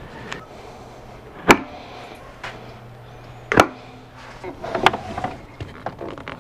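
Two sharp knocks, about two seconds apart, then a run of lighter clicks and knocks: someone moving over a fiberglass boat's stern and handling its outboard motor. A faint steady low hum sits underneath.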